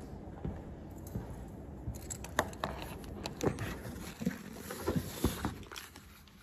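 Handling noise of a phone camera being picked up: fingers gripping, tapping and rubbing against the phone close to its microphone. It is an irregular scatter of clicks and knocks that starts about two seconds in and thins out near the end.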